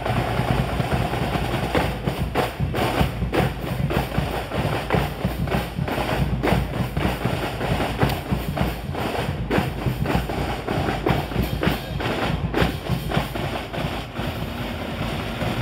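Military war drums playing, snare and bass drums struck in quick, uneven rolls and beats.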